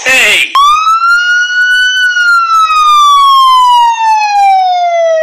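A siren wailing: one tone rises for about a second and a half, then falls slowly for several seconds. A short cry or voice is heard just before the wail begins.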